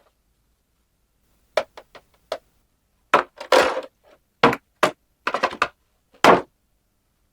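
Small plastic toy pieces being handled: a string of sharp clicks and taps, a brief rustle about three and a half seconds in, and a louder knock about six seconds in.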